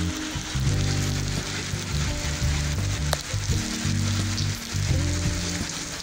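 Heavy rain falling on a paved plaza and foliage: a steady, even hiss. Under it run low sustained musical tones that shift in pitch every second or so.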